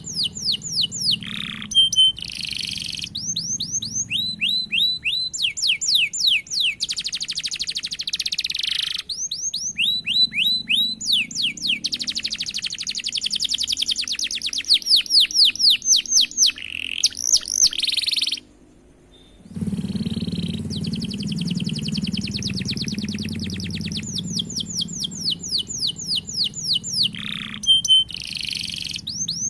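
Domestic canary singing continuously: strings of quick down-slurred whistled notes alternating with long, fast rolling trills. The song breaks off for about a second two-thirds of the way through, over a low background hum.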